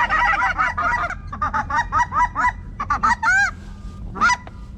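Geese honking: many overlapping honks in the first second or so, thinning to scattered single honks.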